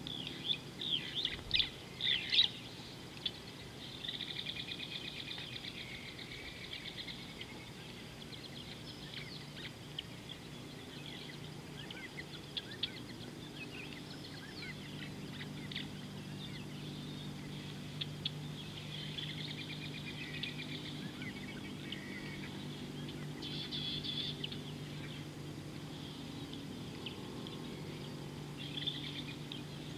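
Wild birds chirping and trilling in a string of short calls, loudest and most frequent in the first few seconds and again briefly near the end, over a low steady hum.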